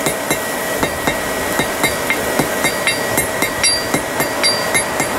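Hand hammer striking a white-hot steel wire cable on an anvil in quick, even blows, about two to three a second, each with a short ring. This is forge welding: the blows fuse the cable's strands into solid steel at welding heat, throwing sparks.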